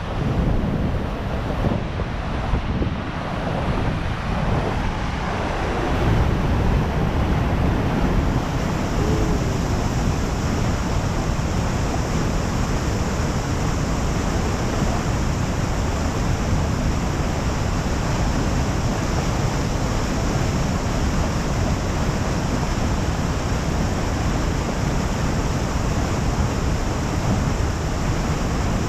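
Steady rush of water, with wind on the microphone; it grows a little louder about six seconds in.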